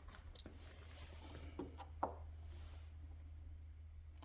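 Faint handling at the workbench: a few light clicks and taps, the loudest about two seconds in, over a steady low hum.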